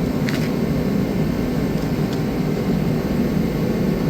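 Steady, even whir of a running fan unit, with one small click about a third of a second in.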